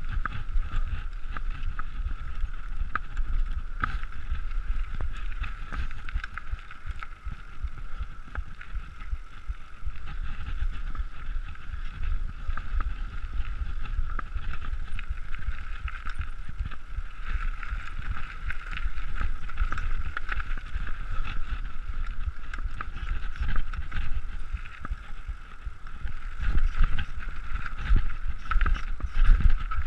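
Nukeproof Mega TR mountain bike riding down a dirt forest trail: steady tyre rumble and bike rattle over the ground, with sharp knocks from bumps. It gets rougher and louder in the last few seconds.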